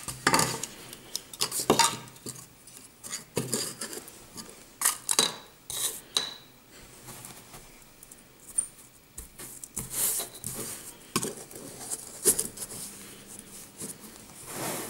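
Hard plastic sand-castle moulds clattering as they are handled, knocked against each other and set down on a tabletop: irregular clicks and knocks, some with a short light ring.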